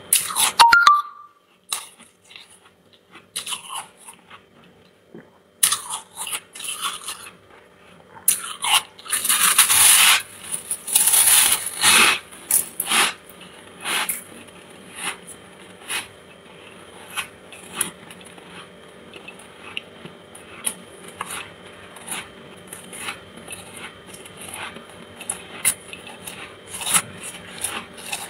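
Freezer frost being bitten and chewed: a run of crisp crunches, loudest and densest about a third of the way in, then a steady string of chewing crunches.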